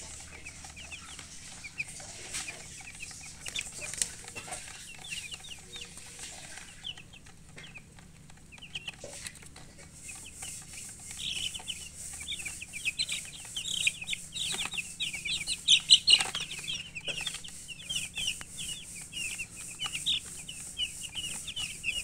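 A flock of baby chicks peeping: many short, high chirps, sparse and faint for the first several seconds, then thicker and louder from about halfway on, with a few sharp knocks among them.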